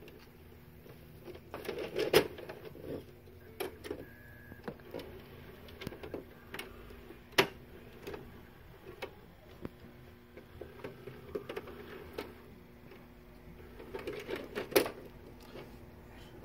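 Faulty Toshiba SD-V296 DVD/VCR combo with a steady low hum, the noise that comes with its distorted picture. Scattered sharp clicks and knocks are heard, the loudest about 2 s in, mid-way and near the end.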